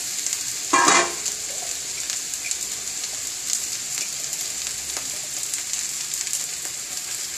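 Oil sizzling steadily in a stainless steel kadai, frying onions and green chillies with freshly added grated raw banana. A short, loud clatter comes about a second in.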